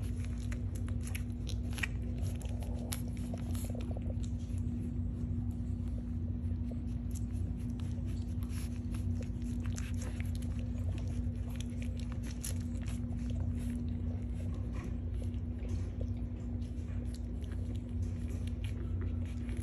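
Week-old French bulldog puppies suckling at their mother: many small irregular wet clicks and smacks of nursing, over a steady low hum.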